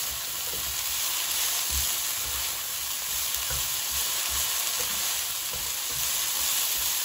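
Broccoli florets sizzling in hot olive oil in a non-stick frying pan over high heat, with irregular dull knocks and scrapes of a spatula stirring them.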